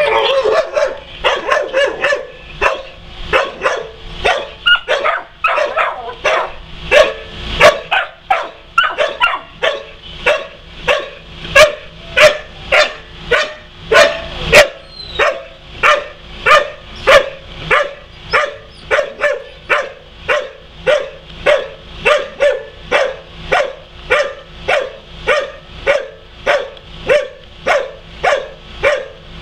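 A dog barking over and over in a steady rhythm, about one and a half barks a second.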